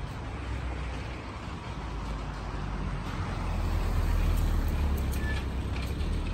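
Street traffic: a motor vehicle approaching, with a low rumble that grows louder over the first four seconds, then holds steady.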